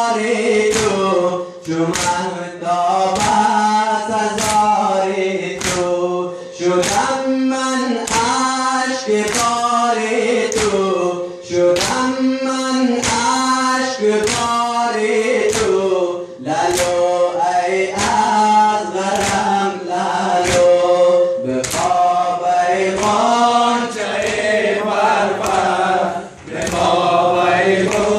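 A chorus of men chanting a Muharram mourning lament (noha) in unison, over loud, regular chest-beating. Hands slap bare chests together in a steady beat under the singing.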